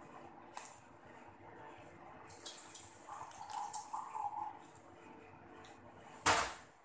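Faint running water with light clatter, and a single loud thump about six seconds in.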